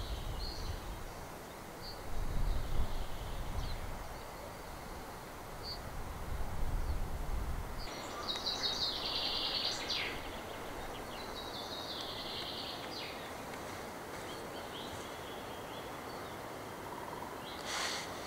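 Outdoor ambience: low wind rumble on the microphone for the first several seconds, swelling twice, then stopping suddenly. After that, small birds sing and chirp high and faint in the background over a steady hiss.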